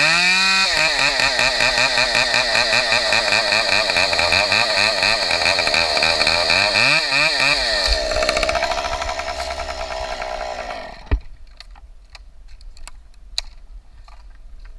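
Chainsaw revving up and running at high speed, its pitch wavering, then dropping back to a lower idle about eight seconds in. It cuts off around eleven seconds in with a sharp knock, followed by a few faint clicks.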